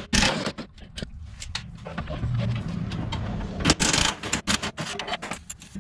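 Cordless impact wrench running in short rattling bursts on the 21 mm nut and bolt of a C5 Corvette's lower control arm, one burst just after the start and another a little before the end, with metal clinks of tools and parts between them.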